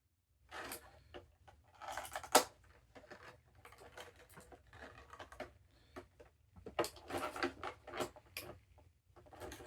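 Scissors and plastic toy packaging being handled: irregular clicks, snips and rustles, with one sharp click about two seconds in.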